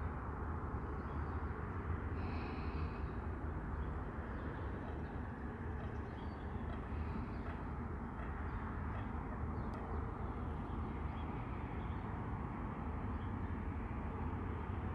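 Outdoor ambience: a steady low rumble, with a faint brief higher-pitched call about two seconds in.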